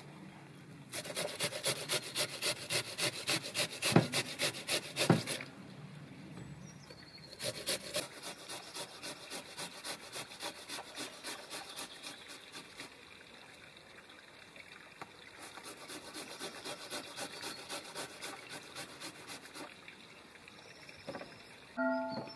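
Raw potato being grated on a hand-held flat metal grater: runs of quick, even rasping strokes, about four a second, separated by short pauses, with two sharp knocks during the first run.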